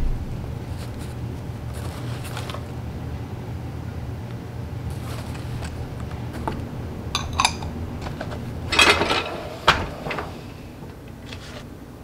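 Small glass bowls being unpacked from a cardboard box: brown packing paper crinkling and glass bowls clinking, in a few short clusters with the loudest about nine seconds in, over a steady low hum.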